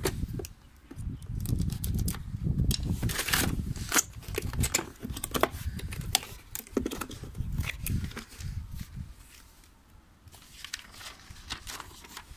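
Unboxing sounds: a knife slitting a cardboard box open, then the cardboard flaps and packing scraping and rustling as the box is opened, with many sharp clicks and crackles over a low rumble. Near the end, quieter rustling of the paper instruction manual's pages being leafed through.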